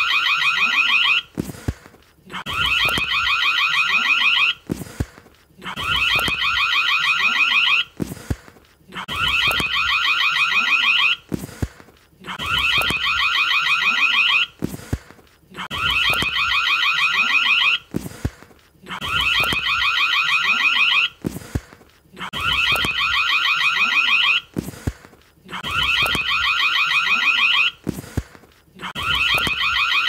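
Indoor electric doorbell ringing over and over. Each ring lasts about two seconds and has a rapid pulsing buzz, and a new ring starts about every three seconds, some nine or ten times.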